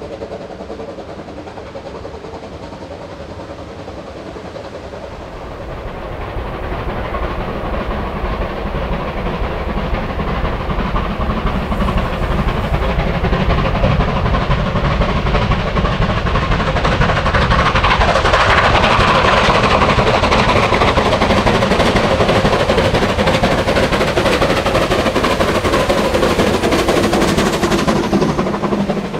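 Steam locomotive working hard with its train up a steep gradient. The sound builds as it draws nearer, stays loud, then cuts off suddenly near the end.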